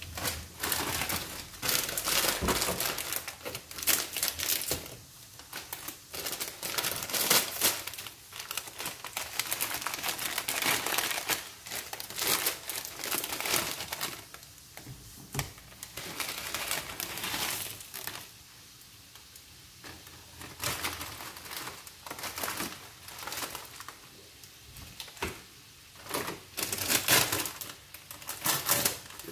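Plastic and foil instant-noodle packaging crinkling in irregular bursts as the packet is handled and its seasoning sachets are taken out, with a quieter stretch about two-thirds of the way through.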